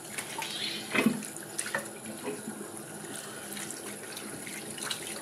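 Tap water running steadily into a bathroom sink while hands rinse homemade slime under the stream, with a few short knocks and splashes, the loudest about a second in.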